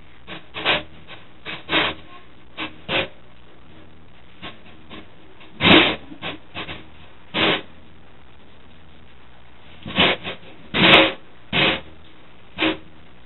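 Short, irregular scraping and knocking noises of hands and a tool working inside an empty metal PC tower case, with the loudest strokes a little before halfway and again near the end.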